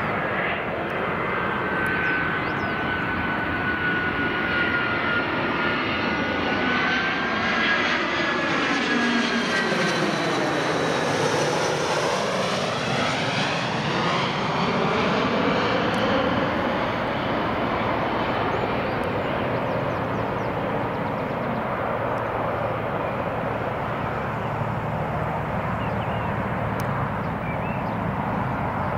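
Jet engines of an easyJet Airbus A320-family airliner at approach power, gear down on landing approach, flying low overhead. A high whine and rushing jet noise build, peak as the aircraft passes over about twelve seconds in, then slowly recede.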